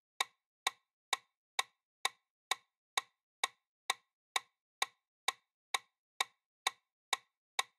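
Countdown timer sound effect: short clock-like ticks repeating evenly about twice a second.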